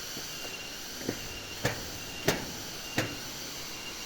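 Steady rushing waterfall noise with a thin, high insect drone over it, broken by four sharp knocks over about two seconds.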